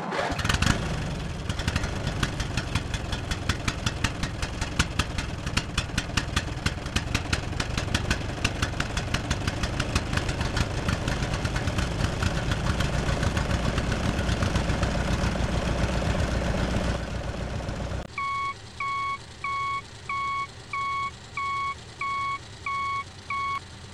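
Tractor engine running with a rapid, regular knock. About three-quarters of the way through it gives way to a vehicle's reversing beeper, sounding about twice a second.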